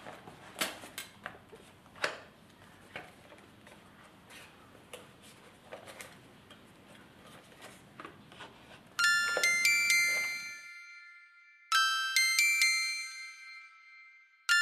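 Light rustling and clicks of a bag and a cardboard box being handled. About nine seconds in, bright glockenspiel-like chiming music comes in: a short phrase of bell notes, played three times.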